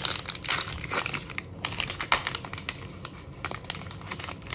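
Trading cards clicking and ticking in rapid, uneven taps as a stack is flicked through and squared up in the hands.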